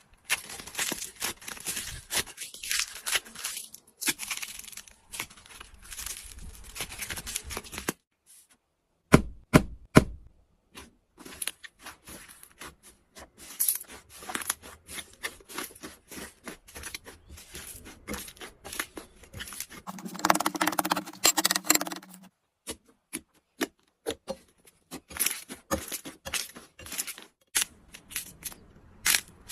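Slime being squeezed and poked by hand, making a dense run of crackling clicks and pops, with a short break about a third of the way through. About two-thirds of the way in, a steady low hum lasts about two seconds.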